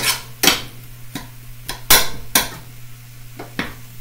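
A cooking utensil knocking and scraping against a skillet as food is stirred: sharp clinks at uneven intervals, roughly two a second.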